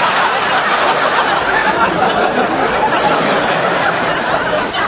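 Dense, steady babble of many voices chattering, with laughter mixed in.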